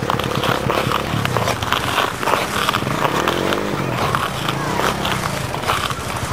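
Quad bike (ATV) engine revving as the machine spins on bare ice, its pitch rising and falling about three seconds in, with scattered clicks and scrapes from the tyres on the ice.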